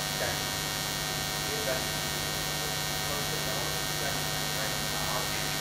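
Steady electrical mains hum in the sound system, with a faint, distant voice speaking off-microphone.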